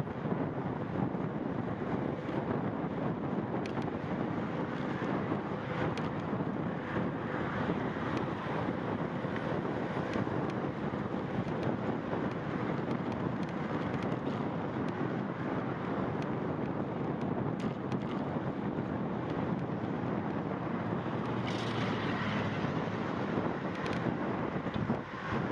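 Steady wind rush on the microphone of a camera riding on a moving bicycle, an even noise with no let-up.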